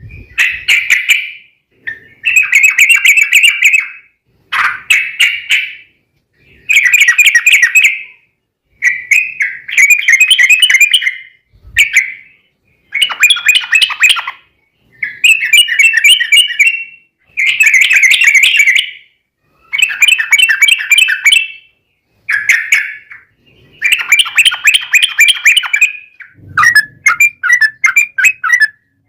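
Yellow-vented bulbuls (trucukan) singing in rapid, bubbly chattering phrases, the 'ropel' fighting song of rival birds. The phrases come one after another, each lasting one to two seconds, with short pauses between.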